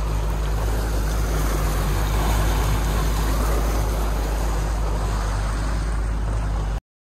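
Twin Mercury 300 outboard motors running at a steady pitch, with water rushing past the hull and wind noise; the sound cuts off suddenly just before the end.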